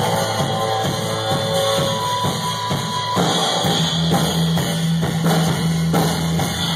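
Live rock band playing: drum kit, electric bass and electric guitars, heard from the audience. About three seconds in, the band moves to a held low chord under cymbal wash, with a few separate drum hits.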